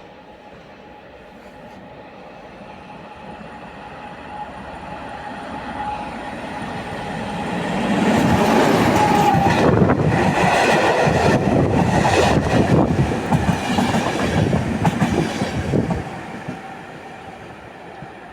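A train passing close by. It grows louder for about eight seconds, stays loud for about eight seconds with a rapid clatter of wheels on the track, then fades.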